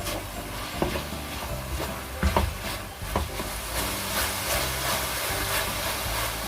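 Fish cakes stir-frying in a pan: a sizzling hiss, with a few sharp clacks of a utensil against the pan about one, two and three seconds in, over background music.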